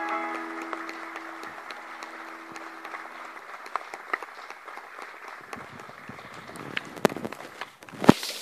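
A grand piano's last chord ringing and dying away after about three seconds, while an audience applauds. Near the end there are a couple of sharp knocks.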